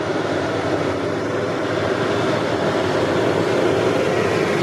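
Deutz-Fahr tractor with a front loader driving by on the road while towing a livestock trailer: its diesel engine runs steadily under load, with tyre noise, and grows slowly louder as it approaches.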